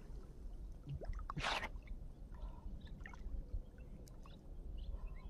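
Quiet water sounds of a man wading in a shallow canal around a thrown cast net, with one short splash about one and a half seconds in.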